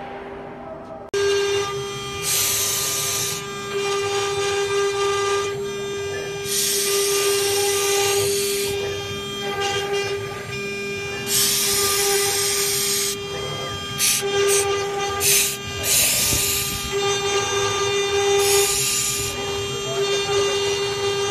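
CNC router spindle running with a steady high whine as its engraving bit cuts circular grooves into MDF board, starting abruptly about a second in. Bursts of hissing cutting noise come and go over the whine every few seconds as the bit moves through the board.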